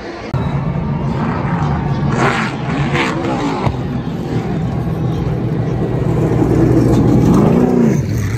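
NASCAR Xfinity stock cars' V8 engines running past on the track, the engine note rising and then falling as cars go by, once about two to three and a half seconds in and again near the end, over a steady engine rumble.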